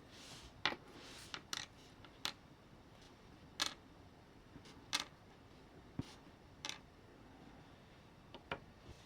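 Irregular light clicks and taps of small parts being handled, about ten in all, with quiet between them.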